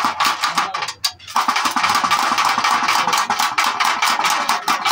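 Diesel fuel-injection pump plunger worked rapidly by hand, clicking fast and squirting diesel in a rattling hiss. It stops briefly about a second in, then carries on. The spraying shows that the plunger is pumping fuel.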